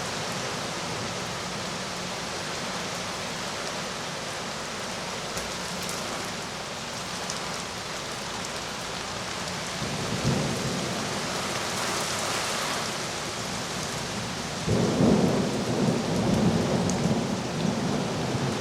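Heavy rain pouring in a severe storm, a steady rush, with a deep rumble about ten seconds in and a louder, longer rumble around fifteen seconds in.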